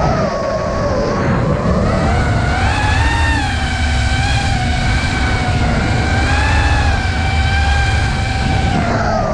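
Electric motors and propellers of a 5-inch FPV quadcopter, an iFlight Nazgul Evoque F5, whining in fast flight, the pitch dipping soon after the start and swelling again several times with the throttle, over a steady low rumble.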